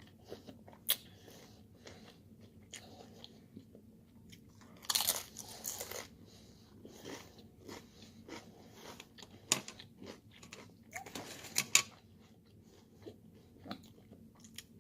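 A person chewing food close to the microphone, with wet mouth clicks and a few louder crunchy bites about five, nine and eleven seconds in.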